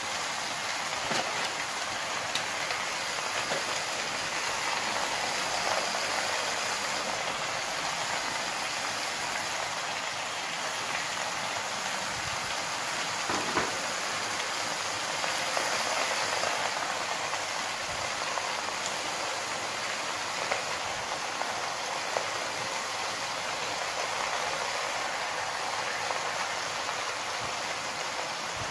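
Steady sizzling hiss from a large aluminium pot of dimlama cooking on a gas stove under its layers of vegetables and herbs, with a few soft knocks as the herbs and cabbage leaves are laid in.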